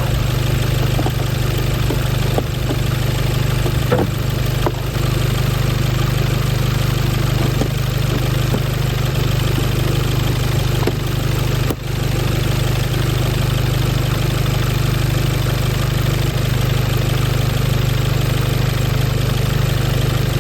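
1985 Cadillac DeVille's HT4100 V8 idling steadily, with a few faint ticks and a brief dip about twelve seconds in.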